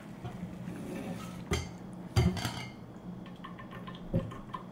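Stainless-steel pots and pans clanking as they are shifted on an electric hot plate, with a few sharp knocks about a second and a half in, at two seconds, and near the end. A steady low hum runs underneath.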